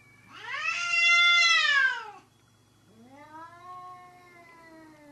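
Cat caterwauling during a face-off with another cat. A loud yowl of about two seconds rises and then falls in pitch. After a brief pause comes a quieter, drawn-out wail that slowly slides lower.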